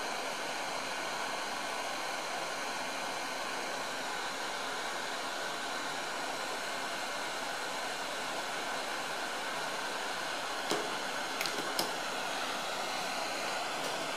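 Hot air rework gun blowing steadily, a constant airy hiss as it heats a thermal-pad SMD chip from above to reflow the solder under it. A few small clicks come about three-quarters of the way through.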